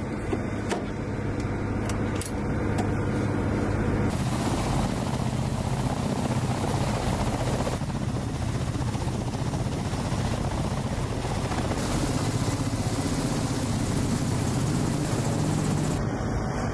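Ka-52 attack helicopter's coaxial rotors and turbine engines running close by, a steady hum with a few sharp clicks in the first two seconds. From about four seconds in the noise becomes louder and rushing, with a strong low hum of the rotors.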